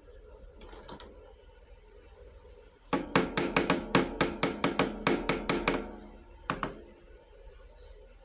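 Small toy kitchenware clinking: a quick run of about fifteen light taps, roughly five a second, each ringing briefly, with a few single clicks before and after.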